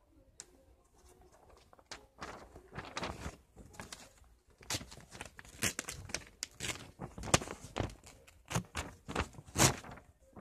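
Scissors cutting out a paper circle: a quick, irregular run of snips and paper rustling that starts about two seconds in.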